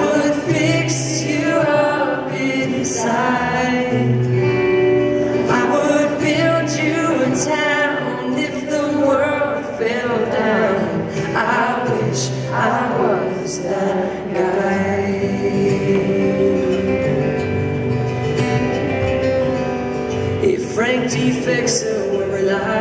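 Live acoustic song: a man singing to acoustic guitar, with other voices joining in harmony.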